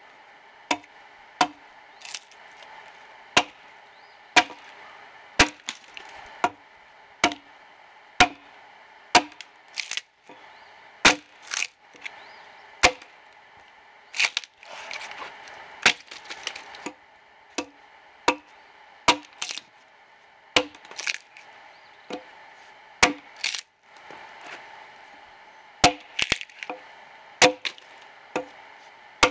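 Axe blows chopping into the side of a dead ash log while hewing it, a sharp woody crack about once a second, some in quick pairs. About midway there are a few seconds of denser crackling between the blows.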